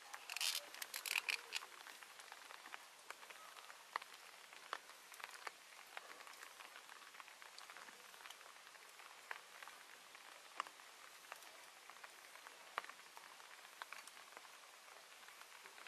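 Faint steady hiss with scattered light ticks, and a short cluster of louder crackles about a second in.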